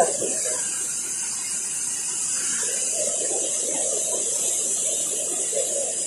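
Water released down a hydroelectric spillway, a steady rushing roar of falling water and spray.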